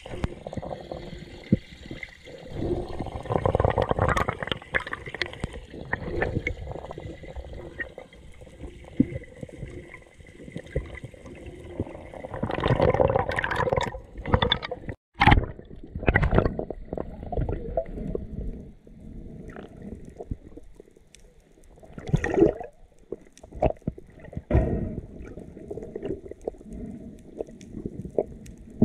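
Muffled underwater water noise through a diving camera's housing: irregular swells of sloshing and gurgling with scattered sharp clicks, and a brief cut-out about halfway through.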